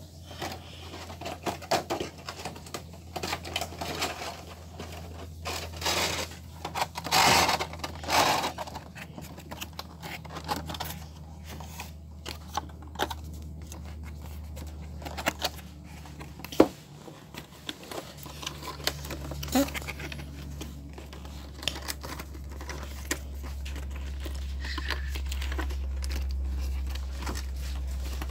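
Plastic and cardboard toy packaging being handled: irregular crinkling and rustling with scattered clicks and taps, loudest about seven to eight seconds in.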